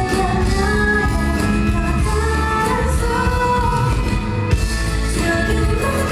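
Live pop song: a woman singing held, melodic notes into a microphone over a steady instrumental accompaniment.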